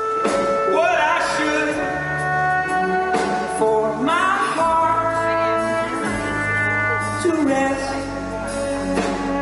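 A live band playing an instrumental passage of a slow folk-rock song: held melody notes, some sliding in pitch, over acoustic guitar and a steady low bass.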